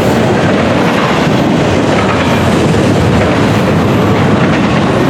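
CN freight train's cars rolling past on the rails: a loud, steady rumble and rattle of wheels on track.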